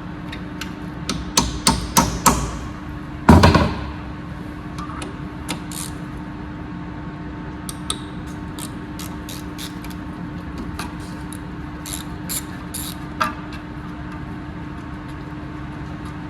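Hammer blows on metal, as a stubbornly stuck part on the car's front hub is knocked at. There is a quick run of hard strikes, the loudest a little over three seconds in, then scattered lighter taps over a steady hum.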